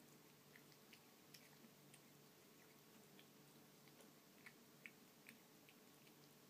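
Near silence with faint, irregular small clicks, a few a second, the loudest about five seconds in.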